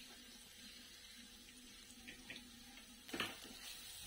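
Faint steady sizzle of a green chilli, garlic and cumin paste frying in oil in a kadhai. A little after three seconds in comes a brief louder scrape of a wooden spatula against the pan as stirring starts.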